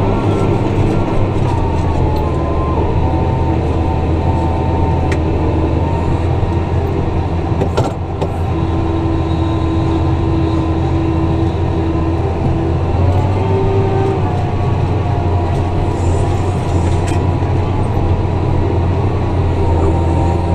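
Tractor engine running steadily under load while pulling a ripper through the ground, a low hum with faint whining tones above it.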